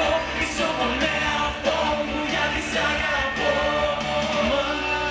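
Live pop music: a man singing into a microphone over an amplified band or backing track with a steady beat.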